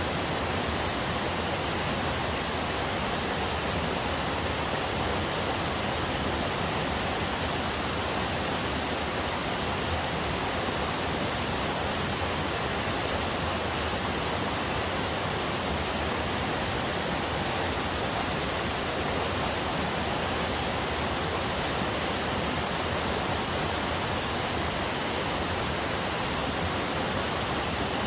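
Small forest waterfall on a river: water falling and rushing in a steady, unbroken hiss.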